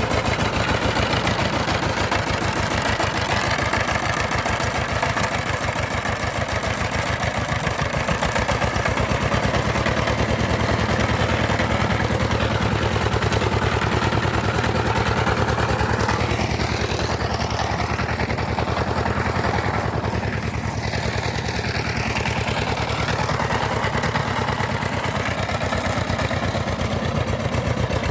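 Small combine harvester's engine running steadily with a fast, even firing beat.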